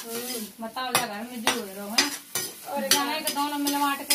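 A metal spatula stirring and scraping vegetables frying in a kadai, with sharp scrapes and clicks over a light sizzle. A woman's voice talks over it.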